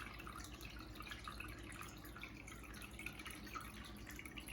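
Aquarium filter water trickling and dripping steadily over a faint low hum.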